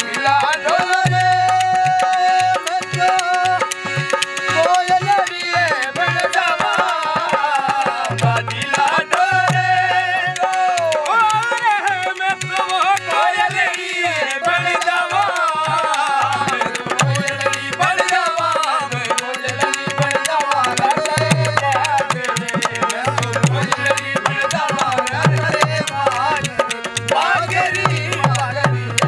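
Rajasthani folk song: a man's voice singing a wavering melody over a harmonium's held notes, with a dholak drum beating a steady rhythm and khartal wooden clappers.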